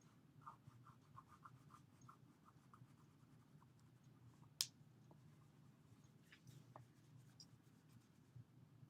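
Faint scratching of a drawing tool on paper: quick, even strokes about three or four a second for the first few seconds as a scarf is drawn thick, with a single sharp click about halfway through.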